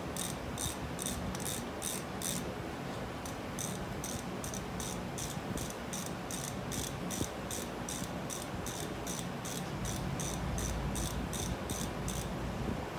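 A cricket chirping steadily, about three short high chirps a second, with a brief pause early on. The chirping stops shortly before the end. A low rumble comes in under it near the end.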